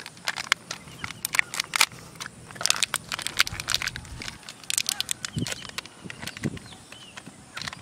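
Small plastic sachet crinkling and tearing as it is bitten and pulled open: a run of sharp crackles in quick clusters.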